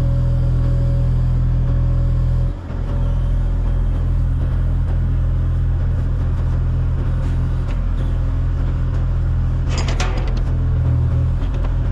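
A vehicle or machine engine running steadily close by, with a brief dip in level about two and a half seconds in and a short burst of rattling clicks near the end.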